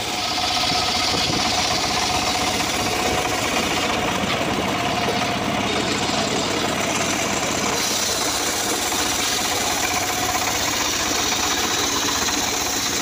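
Homemade engine-driven circular saw ripping a teak log lengthwise: the engine runs steadily under the noise of the large blade cutting through the wood.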